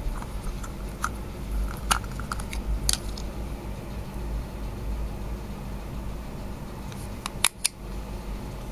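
Clear plastic parts of a Bomberman spinning-top toy handled in the fingers: scattered small clicks and taps of plastic, with two sharper clicks close together near the end.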